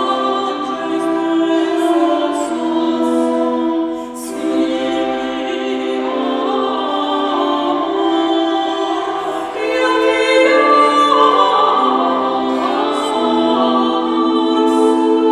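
Two women's voices singing early polyphonic music over the sustained, steady tones of a portative organ.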